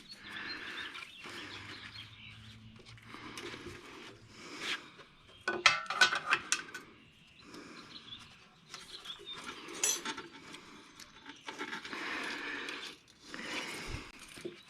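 Small carburetor parts and hand tools being handled and scraped: scattered clicks and short rubbing scrapes, with a quick run of sharper clicks about six seconds in.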